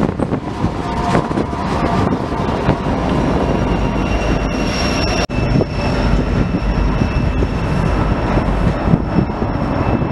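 Coal train running on the rails: a steady, heavy rumble of cars and locomotives. A little past halfway the sound breaks off for an instant, and after that a high steady whine rides on top of the rumble.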